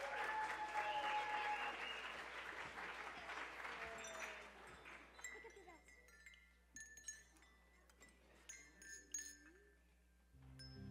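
Applause and audience chatter dying away, then scattered faint clinks and short tinkles of small handbells as the children pick them up. Instrumental music starts just before the end.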